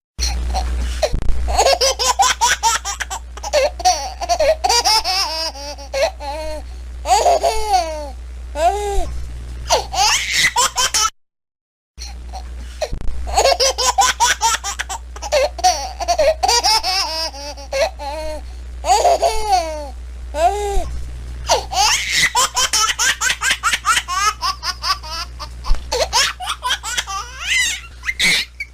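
A baby laughing hard in quick repeated bursts with high squeals. It breaks off for about a second near the middle, then laughs again the same way.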